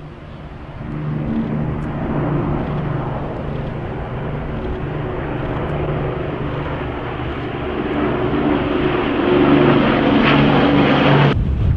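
Two Avro Lancaster four-engined piston bombers flying overhead in formation, their propeller engines droning steadily and growing louder as they pass, loudest near the end. Just before the end the sound cuts off abruptly and gives way to wind rumble on the microphone.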